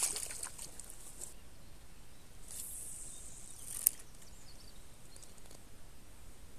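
Water splashing as a carp is let go by hand in the shallows, fading out within the first second. Around the middle a short swish, then a single sharp click, as a lure is cast and the spinning reel's bail snaps shut.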